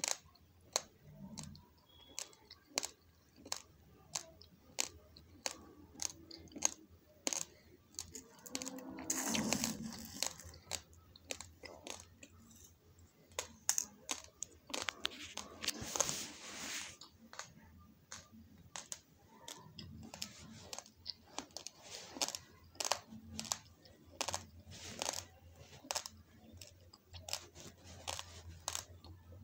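Uncooked basmati rice grains being chewed: a long run of sharp, irregular crunches, with two longer, noisier crunching stretches about nine and sixteen seconds in.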